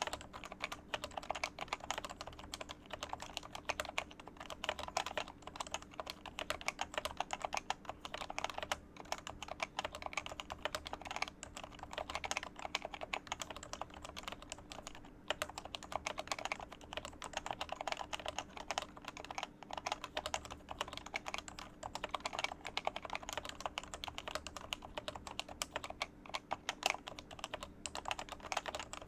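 Continuous fast typing on an HHKB Professional Classic Topre keyboard fitted with Metakeebs 45 g domes: a dense, unbroken run of keystrokes.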